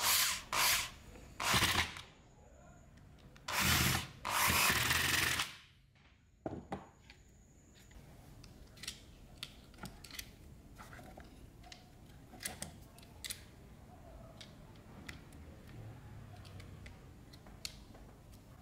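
Electric screwdriver driving screws into a chainsaw's plastic motor housing, in five short runs over the first five or six seconds, the last about a second long. Then scattered light clicks and taps of plastic parts and wires being handled.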